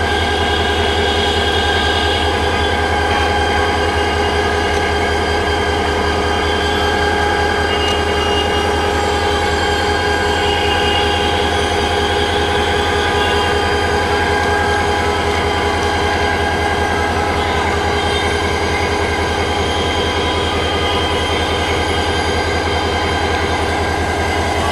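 Diesel locomotive engine running steadily at idle as the locomotive is turned on a turntable, with some faint squealing mid-way.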